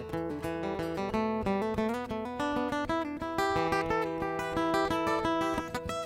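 Solo acoustic guitar played as an instrumental, many quickly plucked notes ringing over held bass notes.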